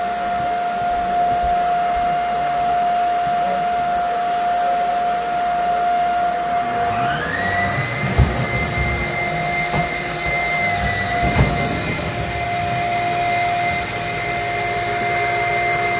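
Upright vacuum cleaner running with a steady motor whine. About seven seconds in, a second, higher whine rises and holds, with more rumble as it is pushed over the floor, and there are a couple of short knocks.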